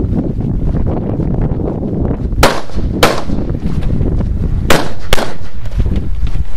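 Four gunshots fired in two quick pairs, the shots in each pair about half a second apart and the pairs about two seconds apart, over a low wind rumble.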